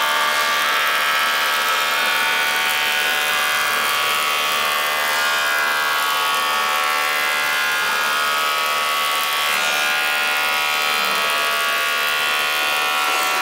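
Restored 1960s Powermatic Model 100 thickness planer running and planing a long board: a steady whine of many tones over the noise of the cutterhead cutting the wood.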